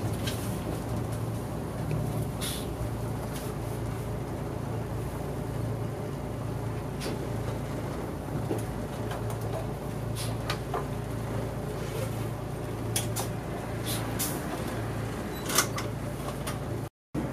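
Cabin sound of an old Mitsubishi Fuso Aero Star two-step bus on the move: a steady engine drone with scattered light clicks and rattles from the interior, one louder knock near the end. The sound cuts out briefly just before the end.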